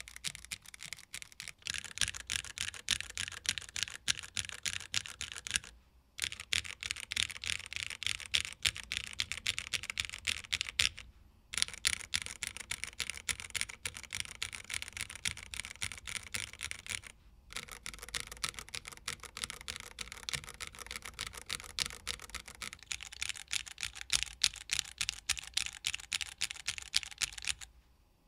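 Continuous fast typing on a Tofu60 2.0 mechanical keyboard with Cherry MX Hyperglide Black linear switches, PBT keycaps and a polycarbonate plate: a dense stream of keystroke clacks that breaks off briefly three times.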